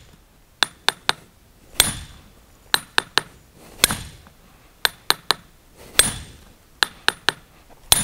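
Hammer striking a steel splitting iron held against a paving stone, with a ringing metallic clink at each blow. The blows come in a steady pattern of three quick light taps followed by one heavier strike, about every two seconds. The last heavy strike near the end splits the stone.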